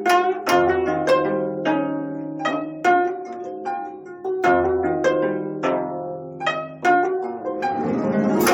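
A quartet of 25-string gayageum playing a run of sharp plucked notes that ring on, with lower notes sounding beneath. Near the end a rushing noise swells up and peaks.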